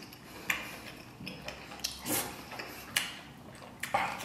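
Close-up mouth sounds of someone eating braised pork belly with rice: chewing and wet smacking, with a few sharp clicks spaced about a second apart.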